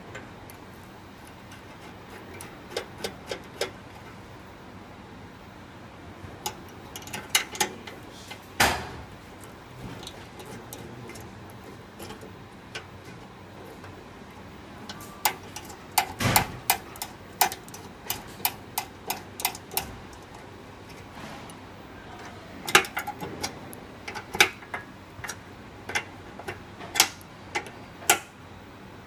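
Irregular sharp metallic clicks and taps as the small brass and metal fittings of a gas stove's valve and burner injector assembly are handled and fitted by hand. The clicks come in clusters, with a louder knock about eight and a half seconds in and another around sixteen seconds.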